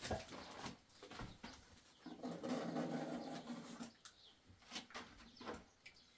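Scattered knocks and clicks from cardboard and other items being handled, with one low pitched, drawn-out tone lasting nearly two seconds about two seconds in.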